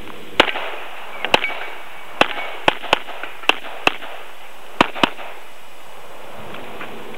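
Handgun firing about nine rapid shots over some five seconds, irregularly spaced with a couple of quick pairs, then stopping.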